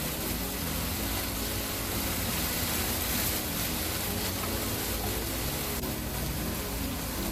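Steady sizzling of food frying in hot oil in a pan.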